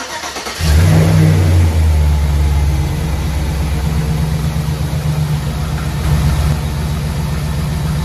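2006 Chevy 5.3 Vortec V8 cranking briefly and catching, revving up for about a second, then settling into a steady idle. It runs without an exhaust-leak tick, now that the exhaust manifold gaskets are new.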